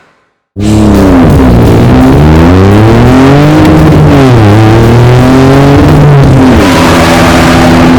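Dubbed-in car engine sound effect that starts suddenly about half a second in and revs up and down repeatedly. A hissing noise joins near the end.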